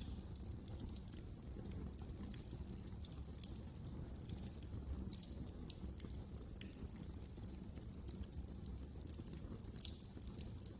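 Fire in a fireplace crackling: frequent, irregular sharp snaps and pops over a steady low rumble of the burning fire.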